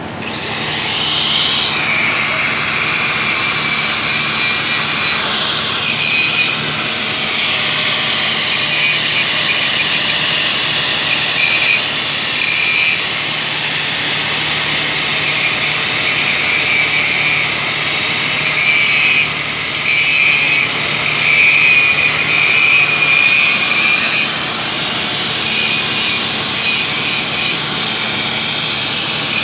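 Loud, steady mechanical hiss with a high wavering whine from industrial plant equipment, starting abruptly about half a second in and running on without a break.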